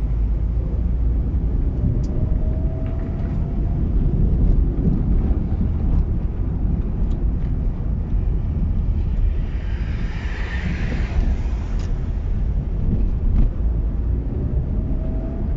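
A car driving: a steady low road and engine rumble, with a faint rising whine twice and a hiss that swells and fades about ten seconds in.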